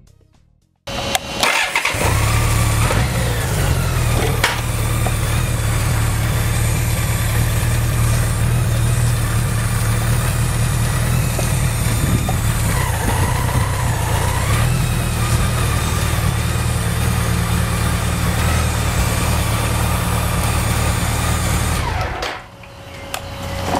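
BMW K100 motorcycle's one-litre four-cylinder engine running steadily as the bike is ridden, starting about a second in and going quiet near the end.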